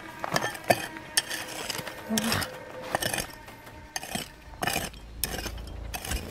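About a dozen irregular sharp clicks and knocks of hard objects, over faint steady background tones.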